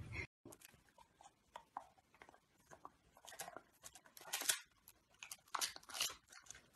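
A dog biting and chewing a crispbread: a run of faint, short crunches and clicks, coming in louder clusters in the second half.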